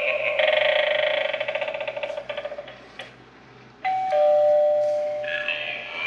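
Gemmy animated Eyeball Doorbell toy sounding through its small speaker. A buzzy electronic sound fades out in the first couple of seconds and a click follows. About four seconds in comes a two-note ding-dong chime, higher note then lower, both held briefly, and another buzzy sound begins near the end.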